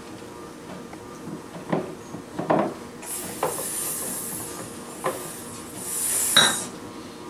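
About five light, scattered knocks, with a high hiss coming in about three seconds in and fading near the end.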